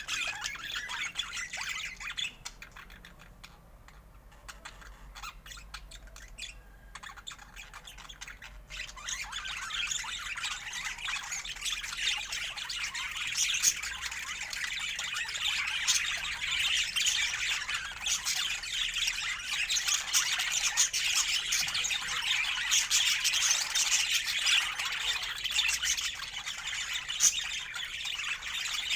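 A flock of budgerigars chattering and warbling in fast, dense squawks and chirps. The chatter thins out for a few seconds near the start, then runs on thick and continuous.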